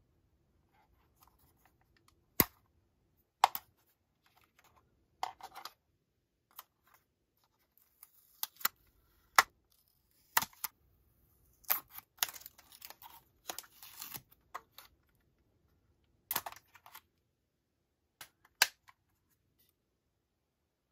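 Irregular sharp plastic clicks and snaps as a DJI Mini 2 drone is handled and its holder strap and protective tab are taken off. A spell of rustling and scraping comes about halfway through.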